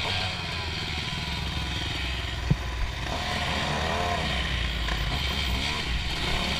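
Dirt bike engine running under the rider, its revs rising and falling as the throttle is worked. There is a single sharp click about two and a half seconds in.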